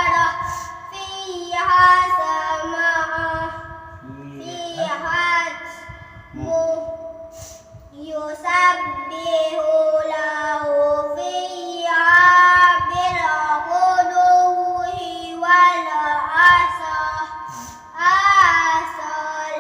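A child's voice reciting Quran verses in a melodic, chanted style, holding long notes with gliding ornaments and pausing briefly for breath between phrases.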